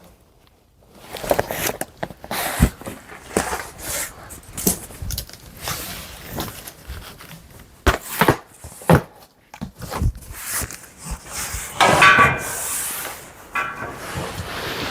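Clothes and boxes being rummaged and handled: rustling fabric and cardboard with irregular knocks and clunks, and a short squeak about twelve seconds in.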